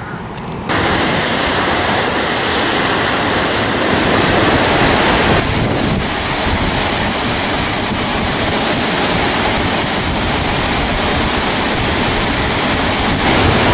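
Waterfall plunging into a pool: a steady, loud rush of falling water, with wind buffeting the microphone. It comes in abruptly just under a second in.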